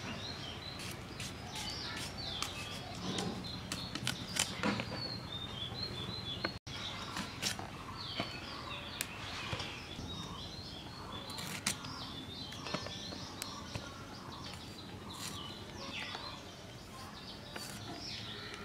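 Small birds chirping in short, repeated high calls over steady outdoor background noise, with scattered sharp clicks and a brief cut-out about six and a half seconds in.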